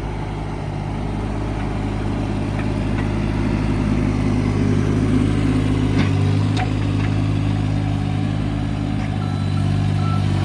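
Diesel engine of a 2008 John Deere 17D mini excavator running steadily while the machine is worked, its pitch and level swelling a little through the middle. Two short knocks about six seconds in.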